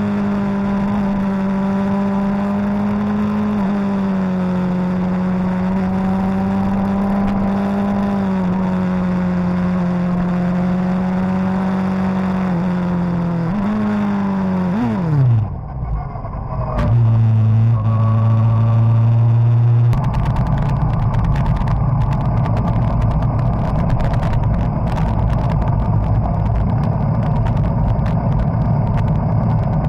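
Suzuki GSX-R1000 inline-four engine heard from an onboard mount, running at steady high revs, then dropping sharply in pitch as the throttle closes about halfway through and settling at a lower steady note. From about two-thirds of the way in it gives way to a rougher, noisier low rumble.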